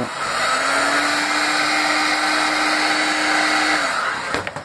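Black & Decker heat gun running, its fan blowing hot air onto PVC conduit to soften it for a bend: a steady rush of air with a motor hum that rises slightly as it spins up. It cuts off about four seconds in, followed by a couple of clicks.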